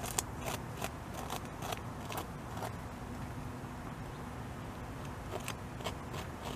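North American beaver gnawing a tree trunk, its incisors taking sharp scraping bites into the wood about twice a second, easing off midway, then a few more bites near the end.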